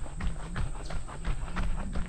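A runner's footsteps on an unpaved dirt trail, an even beat of about three steps a second, over a low rumble from the jostled camera.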